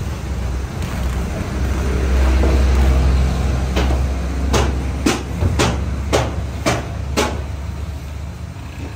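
A low, steady machinery hum, with a run of seven sharp knocks about two a second starting midway, as a flour sack is slapped and shaken out over the steel bowl of a spiral dough mixer.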